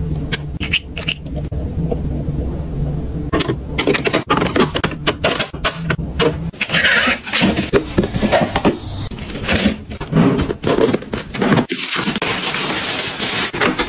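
Cosmetic bottles and cardboard boxes being handled, with light clicks and taps over a low steady hum. About halfway through this gives way to dense crinkling of plastic shrink wrap being handled and peeled off a package.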